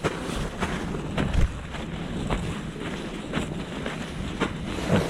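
Footsteps of hikers walking uphill, about two steps a second, with wind rumbling on the microphone.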